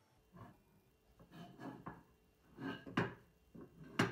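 Walnut strips knocking and clacking against one another as they are set down and pushed together side by side, a run of light wooden knocks with the two sharpest about three and four seconds in.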